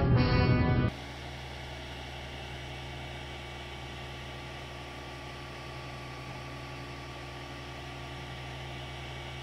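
Background music cuts off about a second in, leaving a 3D printer running with a steady mechanical hum and hiss.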